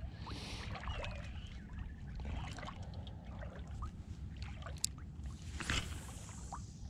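Shallow water sloshing and trickling around an angler's legs as he wades the flats, over a low wind rumble on the microphone, with a few small clicks from the spinning reel. It swells briefly louder near the end.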